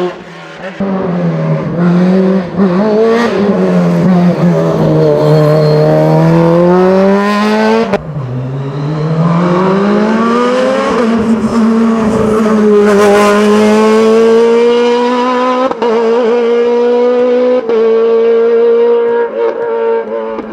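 Honda-engined Osella PA 21 S Evo racing prototype at full noise on a hillclimb. The engine pitch falls and rises as the car brakes and accelerates between corners, with an abrupt break about eight seconds in, then runs fairly steady at high revs with small steps.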